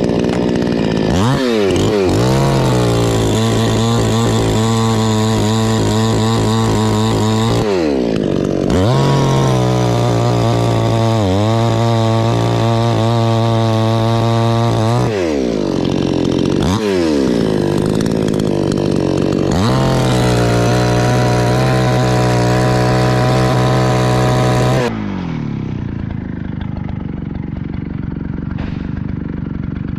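Chainsaw cutting through a coconut palm trunk, revved to full throttle and held there in three long cuts, each time rising, holding steady and then dropping back. For the last few seconds it runs lower and quieter.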